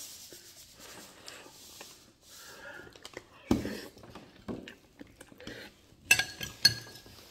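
Eating at a table: soft chewing of a mouthful of cabbage, a dull thump about halfway through, then a metal fork clinking twice against a ceramic bowl near the end, each clink ringing briefly.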